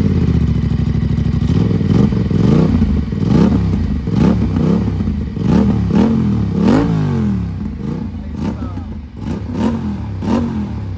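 Aprilia RS 457's 457 cc parallel-twin engine, breathing through an aftermarket under-belly exhaust, idles just after starting. From about two seconds in it takes a series of quick throttle blips, the revs rising and falling again roughly once a second.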